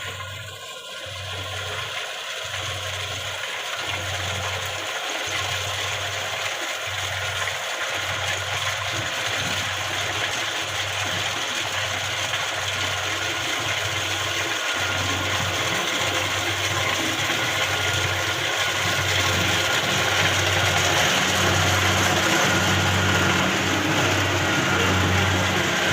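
Kubota Harvest King rice combine harvester running as it works, a dense mechanical clatter that grows gradually louder.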